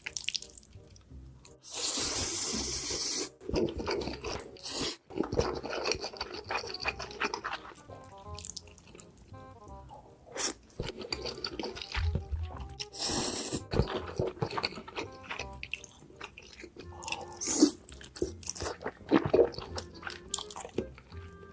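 Close-miked eating of noodles: two longer slurps, one a couple of seconds in and one about two-thirds through, with chewing and crunching between, over light background music.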